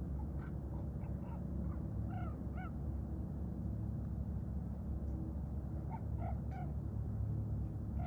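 Short animal calls in small bursts of two or three, heard three times, over a steady low rumble.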